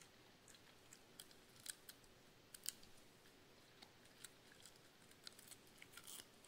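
Cavalier King Charles spaniel chewing a raw cauliflower floret: a quiet run of irregular, crisp crunches and clicks, more than a dozen in all.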